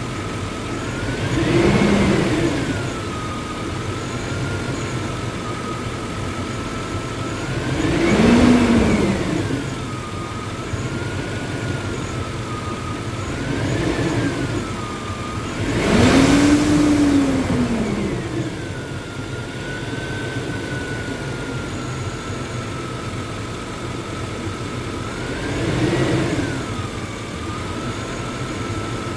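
1999 GMC truck V8 idling cold and blipped up in revs five times, the biggest about halfway through, with a whine that rises and falls with the revs. It is being revved to check for misfires after its intake manifold gaskets were replaced.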